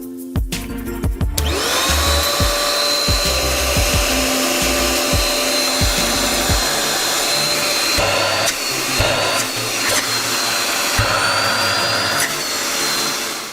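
Deerma DX118C 600 W handheld vacuum cleaner switched on about a second and a half in, its motor spinning up with a rising whine and then running steadily with a rush of air. The pitch shifts a couple of times before the motor is switched off near the end. Background music with a beat plays underneath.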